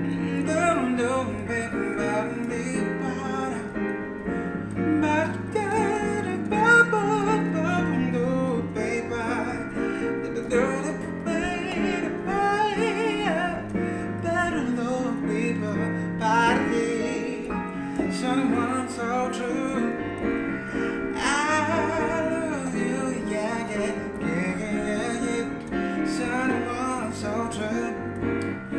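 A man singing wavering, drawn-out vocal runs over his own electric keyboard, which plays sustained chords underneath.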